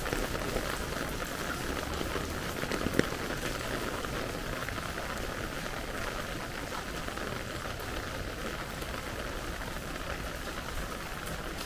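Steady rain falling on a wet paved street and surrounding surfaces, an even hiss of drops. A single sharp tap stands out about three seconds in.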